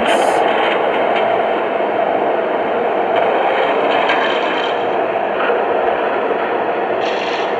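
Lionel Vision Line GG1 O gauge model locomotive running along the track: a steady rolling and electric running sound from the model and its onboard sound system, with brief hissing crackles just after the start and again near the end.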